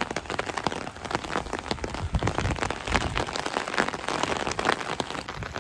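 Rain striking an umbrella held just above the microphone: a dense, irregular patter of sharp drop hits over a steady hiss of falling rain.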